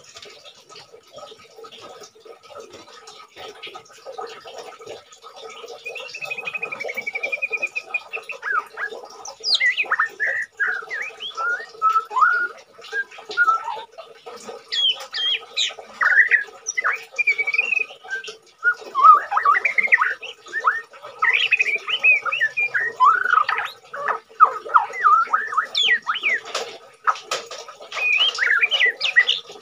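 White-rumped shama (murai batu) singing while in molt: a varied song of quick whistles, sweeping notes and chattering phrases. It starts with a short trill about six seconds in and grows busy from about nine seconds on. A steady hum runs underneath.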